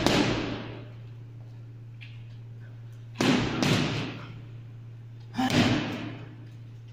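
Gloved punches landing on a heavy punching bag: one thud at the start, a quick one-two about three seconds in, and another punch near the end, each with a short echo from the room. A steady low hum runs underneath.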